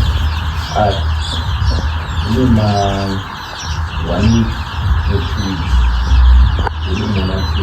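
Chickens clucking in short calls every second or so over a constant din of high, thin chirping, with a low rumble on the microphone.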